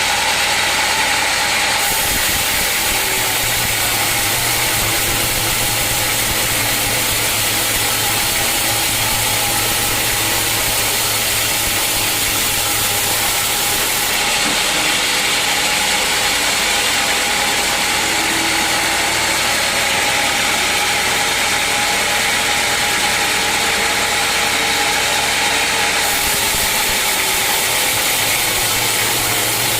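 A sawmill's engine and saw running steadily, a constant loud machine noise whose tone shifts about two seconds in, around the middle and near the end.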